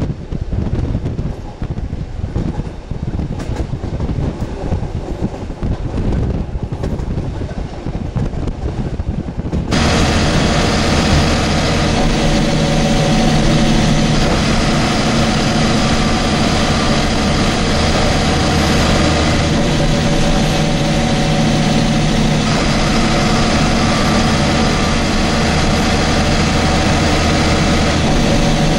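Wind buffeting the microphone for about ten seconds. Then a sudden cut to the steady running of a MAN SL283 city bus's diesel engine heard from inside the bus, with a constant low hum.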